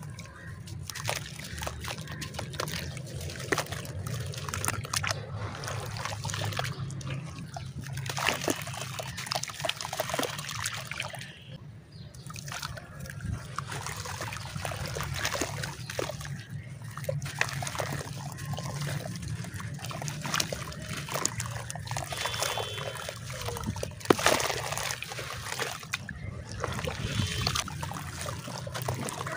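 Hands squeezing and crumbling wet sandy clay in a tub of water: water sloshing, splashing and trickling, with many small gritty crackles as the clay breaks apart.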